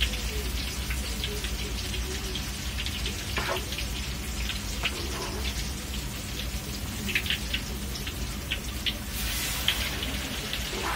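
Hot oil crackling in a wok as spoonfuls of tofu-and-egg batter go in to fry: a steady sizzle with scattered sharp pops.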